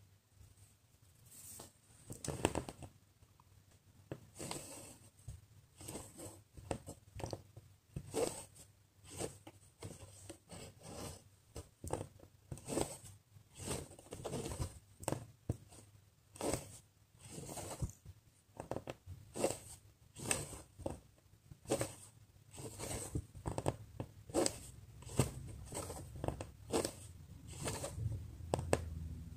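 Cross-stitch thread pulled through Aida fabric stitch after stitch, a series of short swishes about one or two a second as the needle pierces the cloth and the thread is drawn tight.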